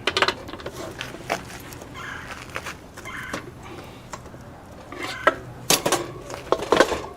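Scattered clicks, knocks and short scrapes of metal being handled on a Harbor Freight band saw as its new blade's tension is tightened.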